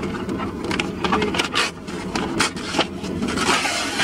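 Stiff kraft-paper bag being pulled and torn open, with irregular crinkling and rustling of the paper.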